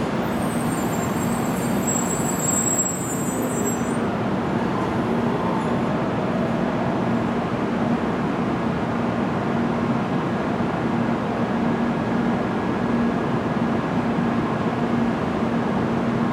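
N700 series Shinkansen train rolling slowly along the platform as it comes to a stop, a steady rumble with a constant low hum. A faint high whine is heard through the first four seconds.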